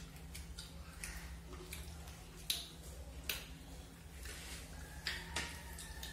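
Eating with the hands: fingers squishing and mixing rice on a plate, with scattered sharp clicks and taps against the plates, a few louder ones in the middle. A low steady hum lies underneath.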